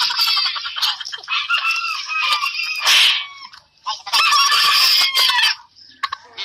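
Several gamefowl roosters crowing over one another in long, overlapping calls, with a short noisy rush about three seconds in. The crowing stops for a moment near the end.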